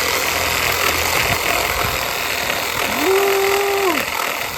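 Battery-powered reciprocating saw running steadily, its blade sawing through brush branches.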